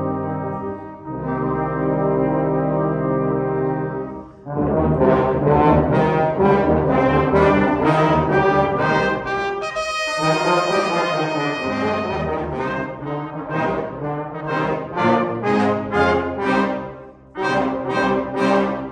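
Brass ensemble of trumpets and trombones playing the closing bars of a march: held chords, then about four seconds in a run of short, punchy, evenly spaced chords, ending on a final held chord that cuts off sharply.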